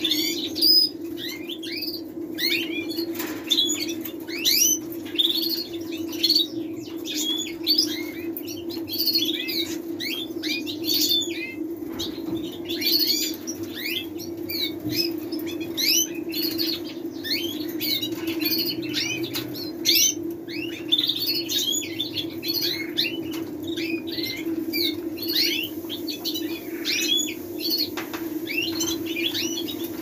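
Birds chirping in quick notes throughout, with wing flapping from a caged common blackbird at its bath, over a steady low hum.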